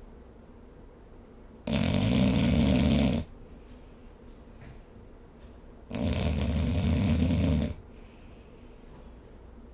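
A sleeping person snoring: two loud snores about four seconds apart, each lasting a second and a half to two seconds.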